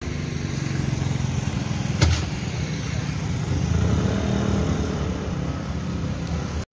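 Street traffic with motor scooters and cars passing close by, their engines running steadily and growing louder as one passes near about four seconds in. A single sharp click sounds about two seconds in.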